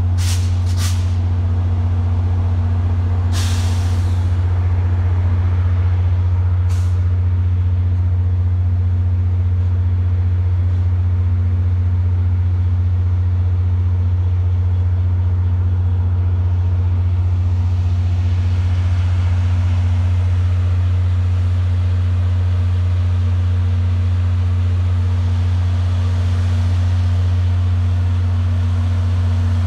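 VIA Rail F40PH-3 diesel locomotive standing and running with a loud, steady low drone. A few short sharp hisses of air from the train's brake system come in the first seven seconds.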